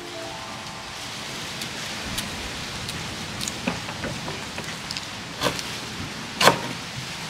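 Chef's knife slicing fresh ginger root on a plastic cutting board: scattered knocks of the blade hitting the board, the two loudest near the end, over a steady hiss.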